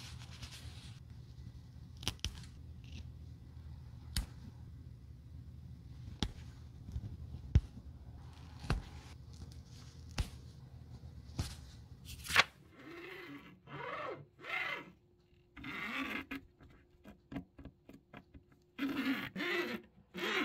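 A seam ripper cutting the stitches of a worn fabric handbag lining: sharp snaps of thread parting, about one every second or two, over a low hum. After about twelve seconds the hum stops, and short pitched voice-like calls come and go.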